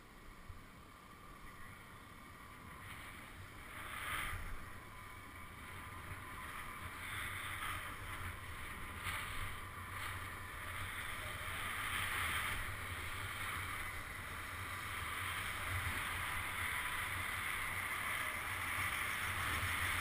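Snowboard riding through deep powder snow: a steady hiss of the board over the snow, mixed with wind rushing over a helmet-mounted camera. It grows louder as the rider picks up speed, with a few brief surges.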